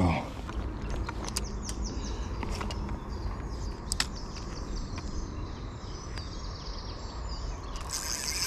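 Small birds chirping in repeated short, high notes over a steady low background rumble, with a few sharp clicks, the loudest about four seconds in.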